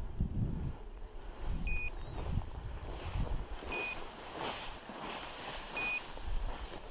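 Tall dry grass swishing against the walker as he pushes through it, with wind rumbling on the microphone. A short, high electronic beep sounds about every two seconds, typical of a hunting dog's beeper collar.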